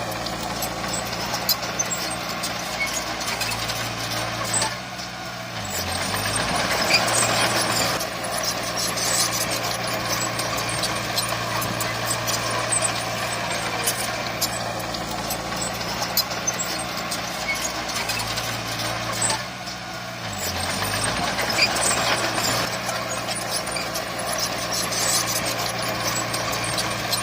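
Heavy diesel earthmoving machine, likely the bulldozer, running steadily with many sharp clicks and knocks. The engine note dips and shifts pitch briefly twice, about five seconds in and again near twenty seconds in.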